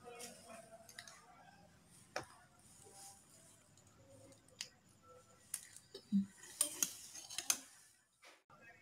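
Eating glass noodles with a metal spoon and fork from a bowl of soup: scattered clicks of cutlery on the bowl and mouth sounds from slurping and chewing. The sounds are busiest, as a quick run of sharp clicks, for about a second from six and a half seconds in.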